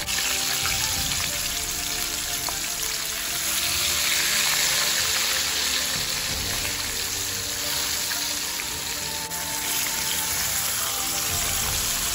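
Whole flour-coated fish frying in a pan of hot oil, with a steady crackling sizzle.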